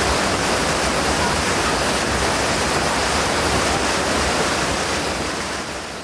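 Water rushing and churning down a river-rafting ride's channel around a round raft boat, a steady rush that fades out near the end.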